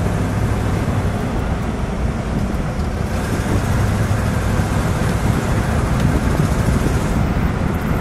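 1960 Ford Thunderbird's 430 cubic-inch V8 running steadily as the convertible drives along, with wind and road noise over it. The wind and road noise grows louder about three seconds in.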